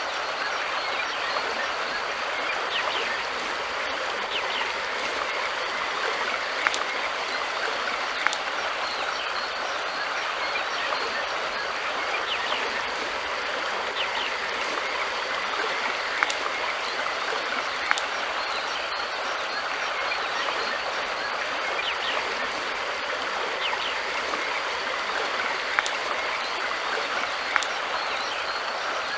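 River water flowing steadily, an even rushing hiss, with a few sharp clicks now and then.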